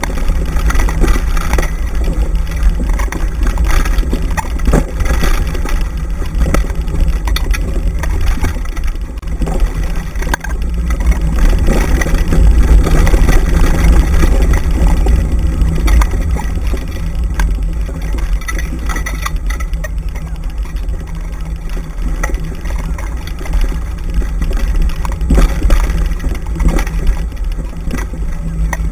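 Steady loud rumble of wind buffeting the camera microphone and the wheels of a dryland mushing rig running fast over a bumpy dirt trail, with frequent small rattles and knocks from the rig.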